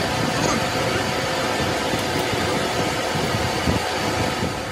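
Steady mechanical running noise: a continuous even hiss over a low rumble.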